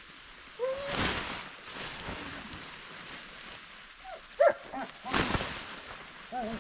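German shepherd whining in short rising-and-falling whimpers: one near the start, a quick run of several about four seconds in, and another near the end. Two brief rushes of noise come between them.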